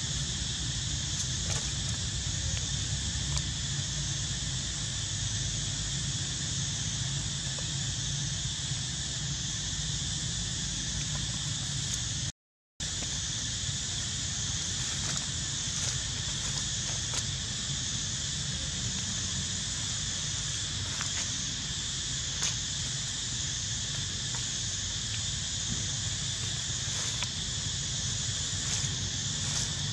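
Steady outdoor background: a constant high insect drone over a low wind rumble, unbroken except for a brief drop-out near the middle.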